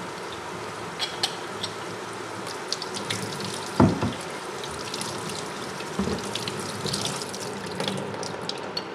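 Hot tap water running steadily into a sink over a boiled bear skull, with scattered clicks and scrapes of a knife working meat off the bone. A single heavier thump stands out about four seconds in.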